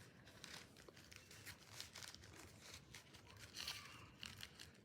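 Faint rustling and crinkling of packaging being handled and pulled open while unpacking a microphone, with a slightly louder rustle a little before the end.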